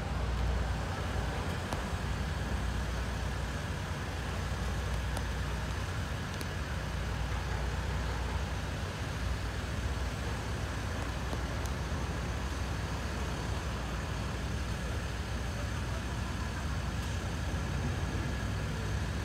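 Steady low rumble with a faint hiss, even throughout and with no distinct events, like outdoor motor noise.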